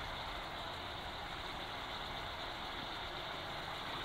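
Steady hiss of a gas stove burner heating a pot of braising fish.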